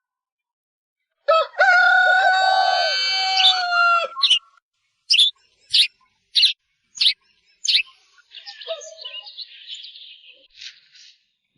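A rooster crowing once in a long call that drops in pitch at the end, followed by a run of about six short, sharp bird chirps.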